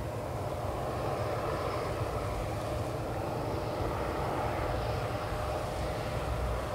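Steady engine noise on an airport apron: a low rumble with a faint whine, growing slightly louder.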